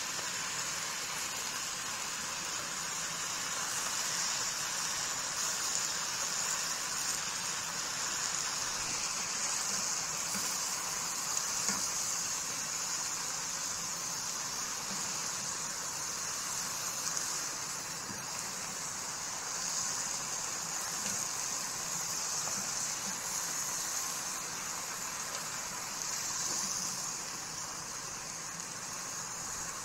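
Steady hiss of a stovetop pot of alugbati (Malabar spinach) simmering in water, swelling and easing gently.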